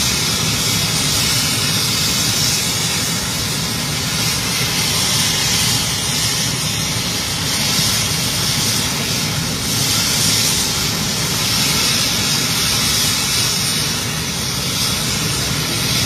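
Bell 430 twin-turbine helicopter running on the ground with its main rotor turning: a steady, loud turbine hiss and rotor noise.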